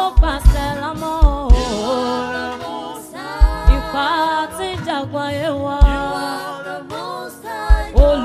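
Live gospel praise singing: a woman's lead voice with backing singers, carried on a loud sound system. Deep bass thumps, often in pairs, are the loudest sounds.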